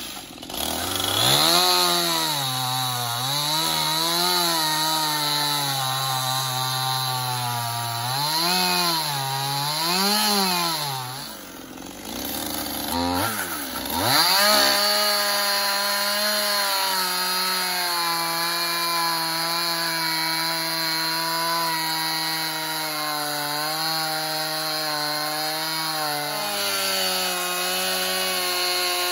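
Stihl MS 271 two-stroke chainsaw cutting into a wooden log. The engine revs up and down several times, drops back about eleven seconds in, then rises again and runs at a steady high speed through a long cut.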